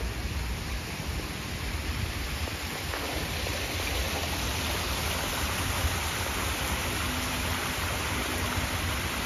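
Small waterfall splashing down a rock face, a steady rush of water that grows louder about four seconds in.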